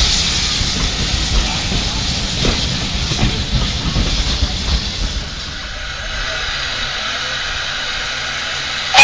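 Railway coaches of a steam-hauled train rolling past, a low rumble with wheel clicks over the rail joints. About five seconds in this gives way to a quieter, steady hiss of steam from a standing steam locomotive.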